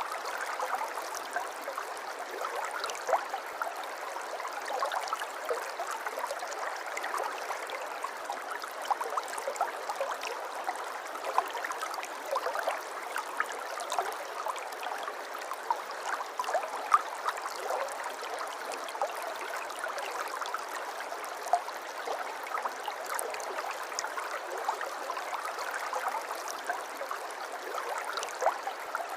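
A small river or stream running over stones: steady gurgling flow with frequent small splashes and drips.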